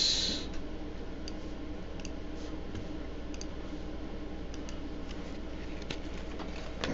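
Faint computer mouse clicks, scattered about a second apart, over a steady low hum.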